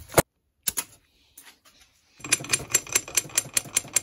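Light hammer taps on steel, about five a second from about two seconds in, after a couple of single knocks: a hammer tapping the CV joint's ball cage and inner race to drive it off the splined axle shaft.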